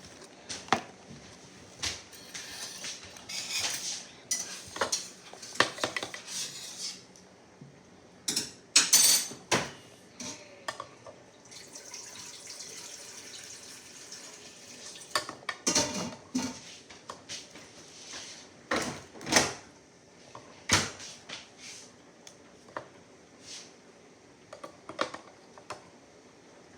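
Cutlery clinking and tapping against dishes at irregular intervals, between stretches of softer rustling noise.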